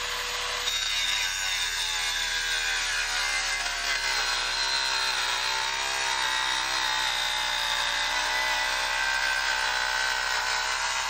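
MK electric wet tile saw, retrofitted as a co-action prototype, running while its blade cuts through a large tile. It makes a steady motor whine whose pitch wavers slightly as the cut is fed.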